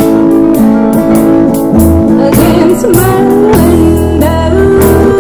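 A small live band playing: bass guitar holding low notes under regular drum and cymbal hits, with acoustic guitar and keyboard. A wavering sung melody line comes in about halfway.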